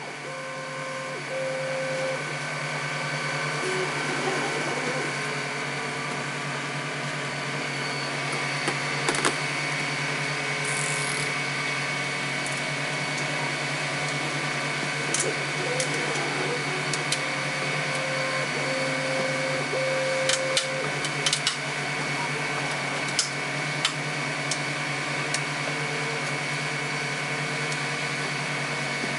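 Desktop 3D printer running with a steady hum and whine, a few short tones changing pitch now and then. Sharp clicks and taps are scattered through it as the printed plastic part is handled.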